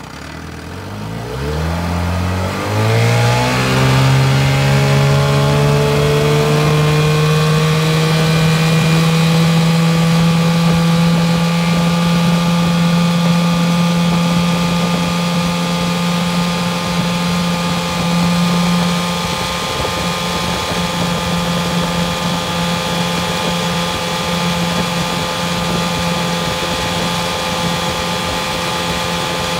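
1988 Gamefisher 9.9 hp two-stroke outboard motor throttled up from idle, its pitch rising over the first three or four seconds. It then runs steadily at full throttle, pushing the boat at planing speed, and eases slightly about two-thirds of the way through.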